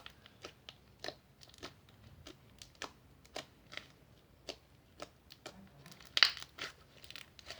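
Clicky slime being stretched and squeezed by hand, giving small irregular clicking pops, with a louder cluster of crackles about six seconds in.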